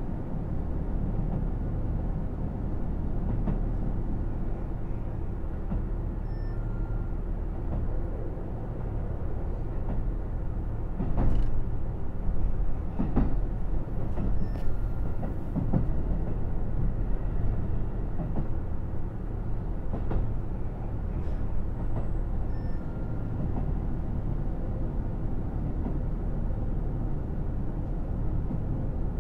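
KiHa 75 diesel railcar running along the line, heard from inside the car: a steady low drone of engine and wheels on rail, with a stretch of louder knocks and rattles near the middle.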